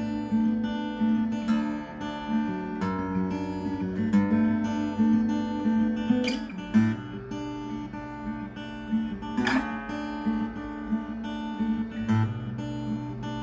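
Music: an acoustic guitar playing sustained chords, with a couple of sharper strums about halfway through.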